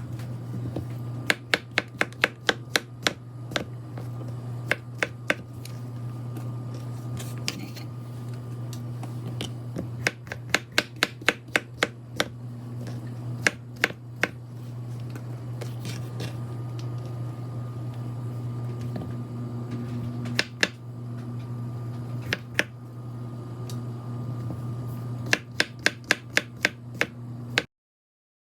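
Cooking utensils clicking and knocking against pots and pans in quick runs of several knocks a second, over a steady low hum.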